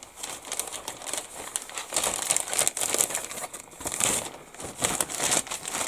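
Thin clear plastic kit bag crinkling and rustling under a hand as it is handled, with irregular crackles throughout.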